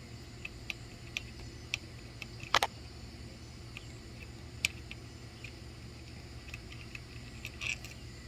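Sparse, irregular clicks and taps from bolts and hand tools being handled while unbolting the cover over a motorcycle's clutch slave cylinder; the loudest knock comes about two and a half seconds in.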